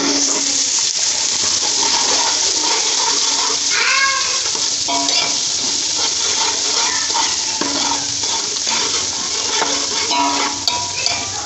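Sliced onions frying in a large pot of hot ghee, a loud steady sizzle, while a metal slotted spoon stirs them and clinks against the pot.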